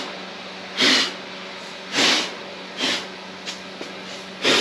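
A person blowing hard by mouth across an iron table saw top to clear sanding dust: short, forceful puffs of breath, about one a second.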